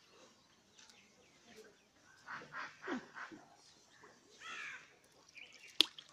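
Faint bird calls: a few short calls in a row between two and a half and three and a half seconds in, and a longer wavering call a little later. A single sharp click near the end is the loudest sound.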